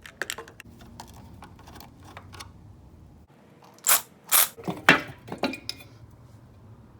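Handling noise: scattered clicks and rustles, then a cluster of five or six loud, brief scraping or crinkling strokes about four to five and a half seconds in.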